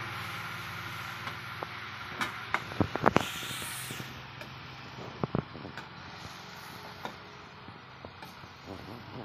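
Metal spatula scraping and clinking against a kadhai as chopped bottle gourd is stirred, with irregular knocks and a short hiss about three seconds in.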